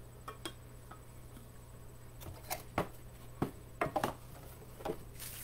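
Light handling noises of a stainless steel tumbler being slipped back into its little bag: scattered small clicks and knocks, most of them in the middle, with a rustle of the bag starting near the end.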